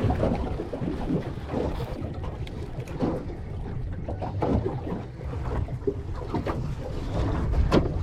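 Water lapping and slapping against the hull of a small fishing boat, with a few light knocks and one sharper knock near the end.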